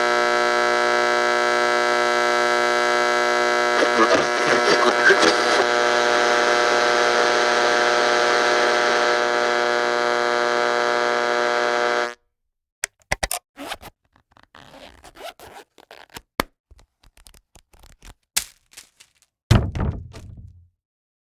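A steady electrical hum with many overtones crackles for a moment about four seconds in, then cuts off suddenly about twelve seconds in. It is followed by scattered sharp clicks and knocks, and a heavier thunk near the end.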